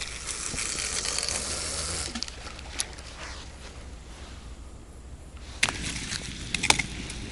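A rush of water for about two seconds, then a few sharp knocks.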